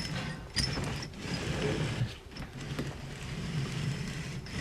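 Metal parts and tools being handled while head studs are installed: light metal clicks and rattling over a steady low hum.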